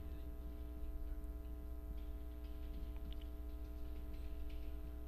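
Marker pen scratching and tapping on a whiteboard in short, irregular strokes as words are written, over a steady electrical hum.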